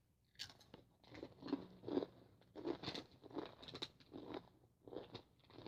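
Someone chewing crunchy Takis rolled tortilla chips, a run of short irregular crunches about two a second.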